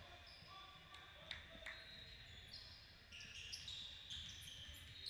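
Faint basketball game sounds: many short, high sneaker squeaks on a gym court, with two sharp knocks of the ball bouncing about a second and a half in.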